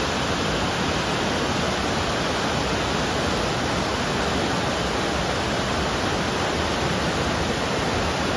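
River rapids rushing over rock ledges in a partly frozen winter river: a steady, even rush of water with no change in loudness.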